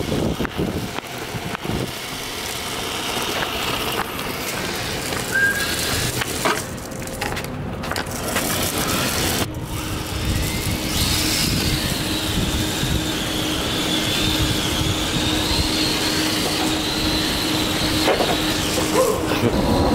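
1:10 scale HSP Flying Fish electric RC drift car driving: its motor whines, the pitch rising and falling with the throttle in the second half.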